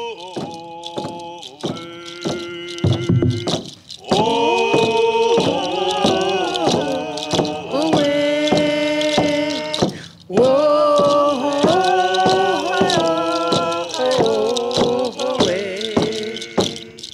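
Music: a man's voice singing long held notes over a steady beat.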